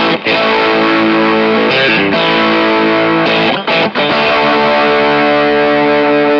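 Stratocaster electric guitar in the in-between pickup position played through a KingTone MiniFuzz v2 fuzz pedal into a lightly overdriven amp with reverb: thick, raw fuzz chords held and restruck, with a few short breaks between them.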